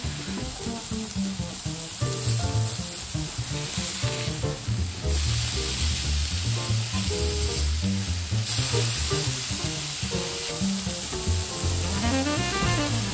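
Ground-beef burger patties sizzling steadily in a hot cast-iron skillet, the frying hiss growing louder about halfway through. Background music with a bass line plays under it.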